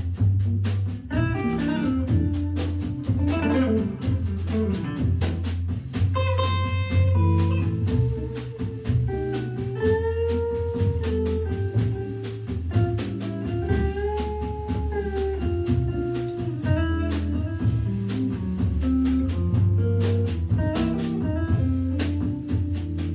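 Live jazz organ trio playing: guitar, Hammond B3 organ and drum kit together, with a melodic line that slides between notes over a steady organ bass line and busy drum and cymbal strokes.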